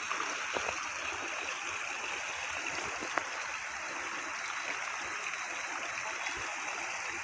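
Steady rush of flowing rainwater, with a couple of faint clicks.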